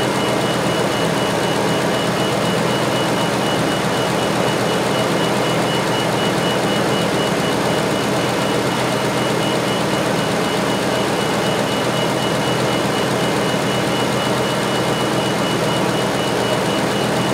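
Ford F350 pickup engine idling steadily under electrical load, with a faint rapid high-pitched beeping or chiming throughout.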